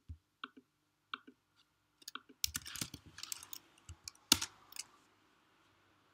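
Computer keyboard typing: a few separate clicks in the first second, then a quick run of keystrokes from about two and a half to five seconds in, with one sharper, louder stroke near the end of the run.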